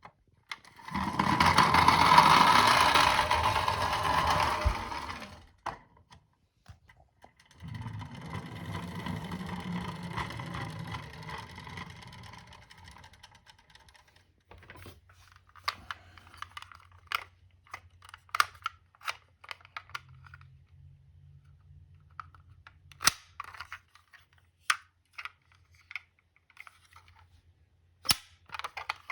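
A die-cast toy car rolling down a slope twice: a loud run of about four seconds starting about a second in, then a quieter, longer run from about seven seconds in. After that come scattered light clicks and taps as the small toy cars are handled.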